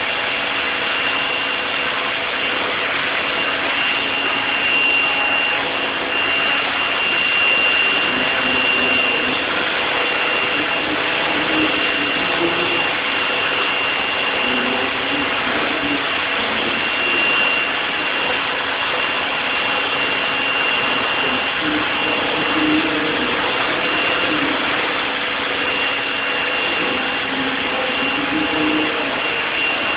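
Pressure washer running steadily, its jet hissing onto denim jeans laid on concrete, with a thin high whine from the machine.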